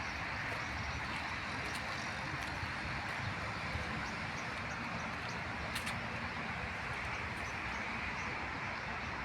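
Steady outdoor background noise with a low rumble, unbroken throughout, with a few faint clicks.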